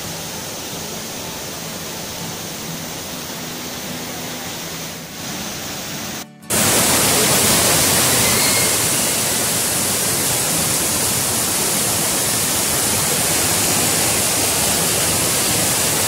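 Waterfall cascading over rocks in heavy flow: a steady rushing hiss of falling water. About six seconds in it cuts out for a moment and comes back louder and brighter.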